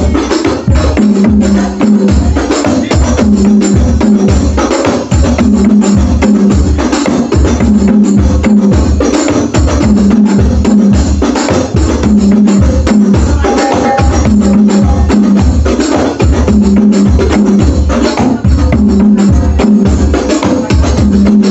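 Loud music with a steady, evenly spaced drum beat and heavy bass.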